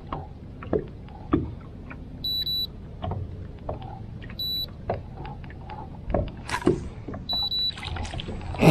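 Three short electronic beeps, one steady high tone each, a couple of seconds apart, among scattered clicks and knocks of handling in a boat, with a loud knock at the end.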